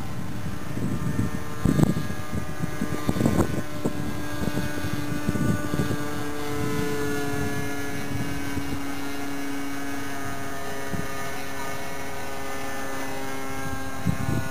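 SIG Kadet LT-40 radio-control model plane's engine droning steadily in flight overhead, with a few gusts of wind buffeting the microphone in the first few seconds.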